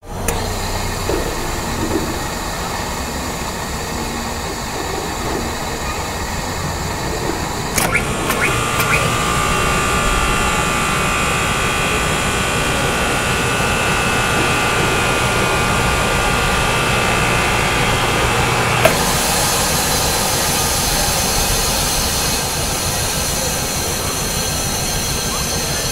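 MBU scroll air compressor from an electric train running. About eight seconds in it cuts in with a few clicks and runs louder with a steady whine. About eleven seconds later it stops with a click, and a brighter steady hiss carries on.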